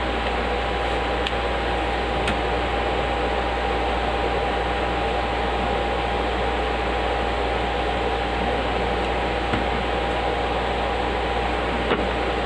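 Steady whir of electric cooling fans, with one constant mid-pitched tone. There are a few faint clicks as computer hardware and cables are handled.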